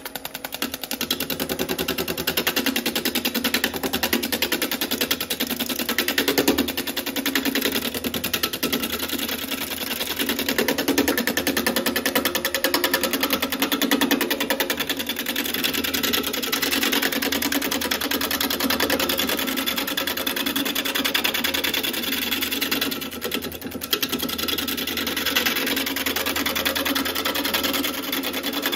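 Gouge cutting into a spinning birch log on a wood lathe, a steady rapid chatter as the tool roughs the log down. It eases off briefly about three quarters of the way through.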